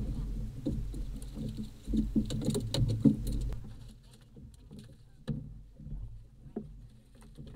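Small waves slapping and lapping against the fibreglass hull of a drifting bay boat, in a dense run of low knocks that eases about halfway through, leaving only a few separate knocks.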